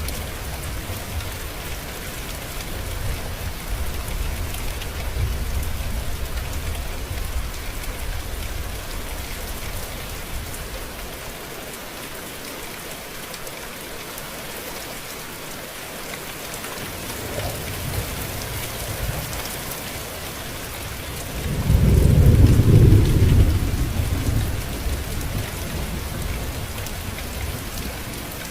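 Steady heavy rain with rolling thunder; about three quarters of the way through, a loud low thunder rumble swells up suddenly and dies away over a few seconds.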